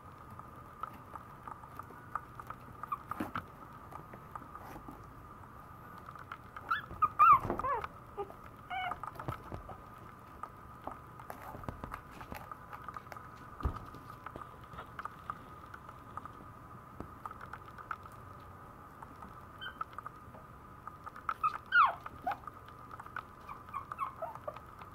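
Maltese puppy giving short, high-pitched whimpering cries in two bouts, about seven seconds in and again near the end, with small clicks of its claws moving on the floor in between. A faint steady hum sits underneath.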